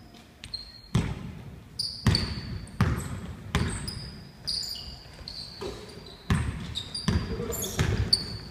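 Basketball bouncing on a hardwood gym floor as it is dribbled, each bounce a sharp thump with reverberation in the large hall, about one a second with a pause in the middle. Sneakers squeak on the floor in between.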